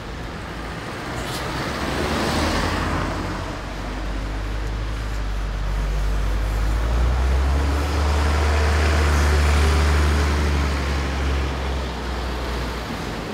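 Town bus engine pulling away and driving past: a low engine drone that builds to its loudest in the second half and then fades as the bus moves off. A car's tyres swish past about two seconds in.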